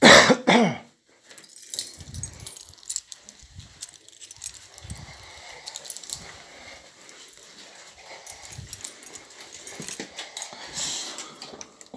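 A nervous dog gives one sharp whine or yelp as the sound opens. After it come scattered soft thumps, clicks and rustling of movement and handling.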